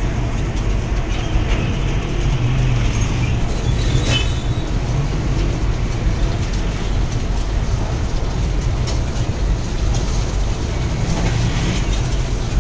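Street-stall noise: a steady low rumble under food sizzling on a large flat griddle, with a few clinks of a metal spatula.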